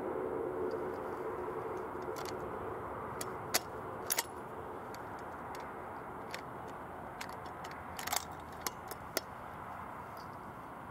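Steady background hiss with a scatter of about seven short, sharp clicks, two of them close together about four seconds in and a small cluster between eight and nine seconds in.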